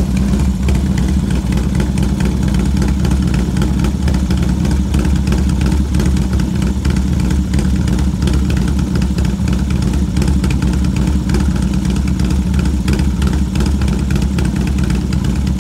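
Harley-Davidson Dyna Street Bob's V-twin engine, built to 107 cubic inches with Woods 777 cams, idling steadily with no revving.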